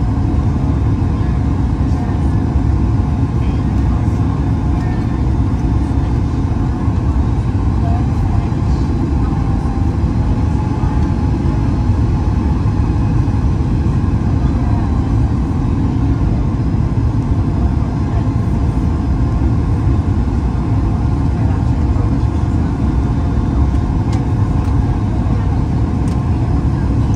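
Steady cabin noise inside a Boeing 737 MAX 8-200 airliner in flight: an even, unbroken rumble of engines and airflow, heaviest in the low end.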